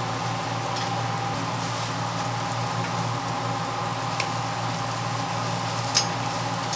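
Hotteok frying in oil on a flat griddle: a steady sizzle over a low hum. A few sharp clicks sound through it, the loudest about six seconds in.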